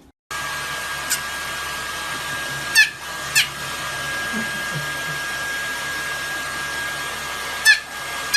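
Hair dryer running steadily with a constant high whine, starting abruptly a moment in. Five short, high squeaks that fall in pitch cut through it.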